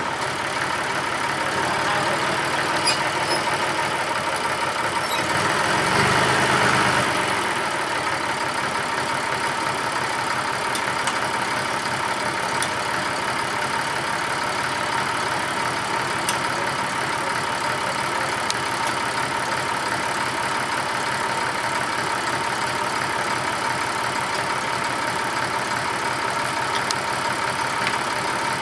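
Massey Ferguson 35 tractor's diesel engine running steadily, louder for a couple of seconds about six seconds in, then settling back to an even, unchanging run.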